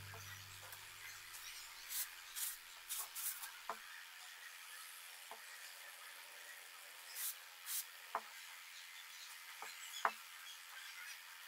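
Light wooden clicks and knocks mixed with short scraping, brushing sounds as loose pine slats are set down and pushed into place on a wooden chair frame; the sharpest knock comes about ten seconds in.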